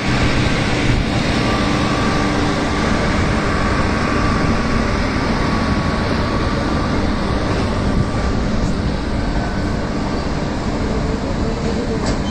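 Indian Railways LHB passenger coaches rolling slowly past on departure, a steady rumbling run with a droning hum from the luggage-brake-and-generator car's diesel generator set. The hum fades after about eight seconds as the generator car moves on.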